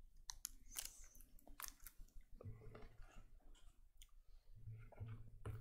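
Faint clicks and handling noise at a lectern microphone as a small communion cup is drunk from and handled, with a low hum coming in about halfway through.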